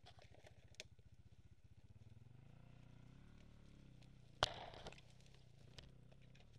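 Dirt bike engine idling with a steady low putter, its pitch wavering a little from about two seconds in. A loud sudden clatter comes about four and a half seconds in.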